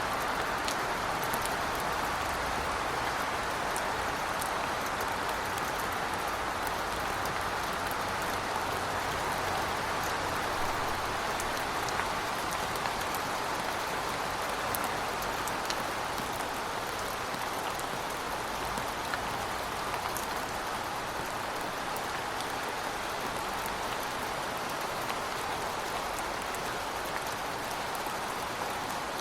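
Heavy rain falling steadily: an even hiss with scattered drop ticks, over a faint low rumble.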